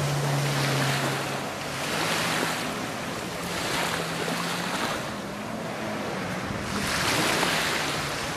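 Kawasaki STX-15F jet ski's four-stroke engine droning steadily at a distance as it carves turns, under a wash of surf and wind that swells and fades every couple of seconds.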